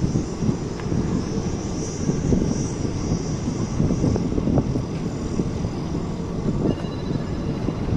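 Moving train heard from its open door: a steady rumble of the wheels on the rails with irregular knocks from the track, and wind rushing past.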